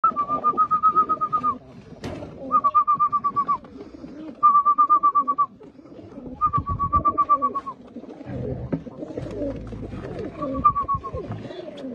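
Botosani tumbler pigeons cooing, low and wavering throughout. Five times over it, a fast, high-pitched trill about a second long cuts in; it is the loudest sound, and the last one is fainter.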